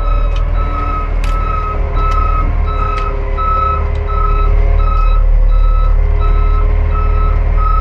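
Refuse truck's backup alarm beeping steadily, about three beeps every two seconds, over the truck's engine running low: the truck is in reverse. A few short knocks sound early on.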